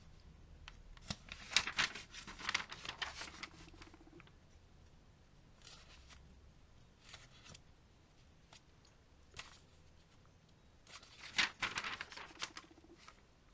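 Glossy catalogue pages being turned and rustled by hand, with paper crackle in two bursts, one about a second in and one near the end, and a few light paper clicks between them.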